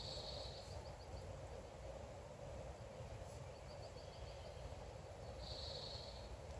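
Faint morning outdoor ambience with a songbird singing: a high held note followed by a quick run of short chirps, heard at the start and again about five and a half seconds in, over a steady low background hum.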